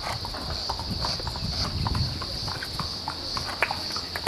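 Hoofbeats of a horse cantering on grass turf, over a steady high-pitched drone of insects.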